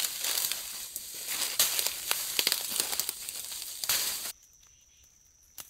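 Footsteps crunching and crackling through dry leaf litter and fallen palm fronds, a dense run of sharp crunches. About four seconds in it cuts off suddenly to a much quieter forest with a faint, steady, high insect drone and a single click near the end.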